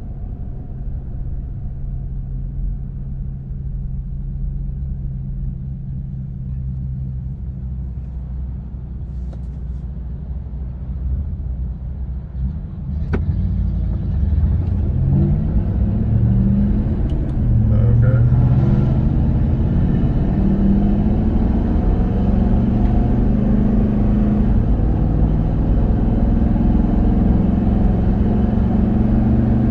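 Road and tire noise inside the cabin of a Toyota Sequoia on Mickey Thompson Baja Boss A/T all-terrain tires: a steady low rumble. Halfway through there is a short click, then the engine note rises in steps as the SUV accelerates, and the noise grows louder.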